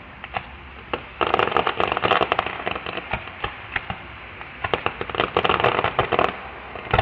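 Aerial fireworks crackling: scattered sharp pops, with two dense spells of rapid crackle, one starting about a second in and another around five seconds in.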